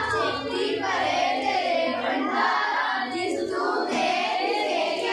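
A group of schoolchildren singing a Sikh hymn together, many young voices in unison with long, wavering held notes.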